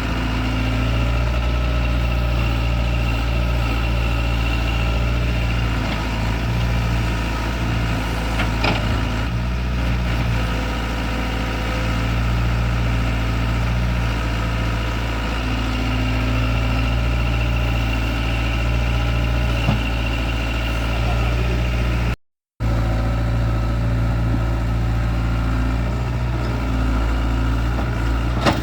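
Excavator's diesel engine running steadily with an even low hum, a few faint knocks over it. The sound cuts out for a moment about 22 seconds in.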